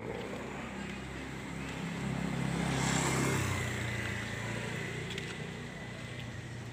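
A motor vehicle's engine running, swelling to its loudest about three seconds in and then fading, over a steady low hum.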